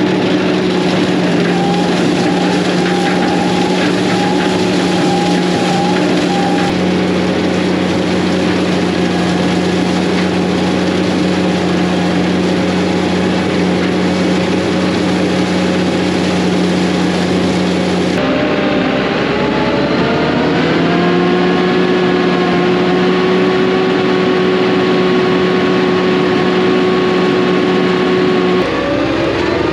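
Combine harvester running while harvesting: a steady engine and machinery drone with whining tones. The sound changes abruptly about two-thirds of the way through and again just before the end, and rises in pitch for a couple of seconds after the first change.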